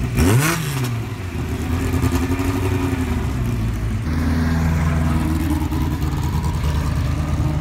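Vintage formula race car engine running at low revs as the car rolls slowly by, with a quick rev right at the start, then a steady engine note that gets louder about four seconds in.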